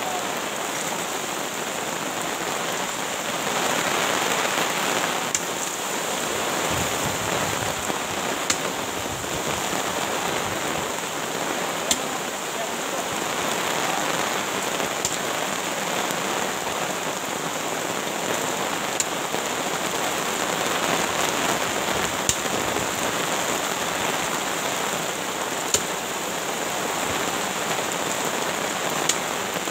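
Heavy rain falling steadily, an even hiss of rain on the ground and surfaces, with a faint sharp tick every three or four seconds.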